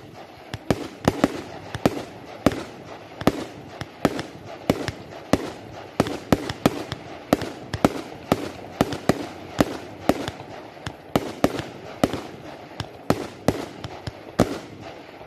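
Fireworks display: shells launching and bursting in a rapid, uneven run of sharp bangs, about two or three a second, some much louder than others.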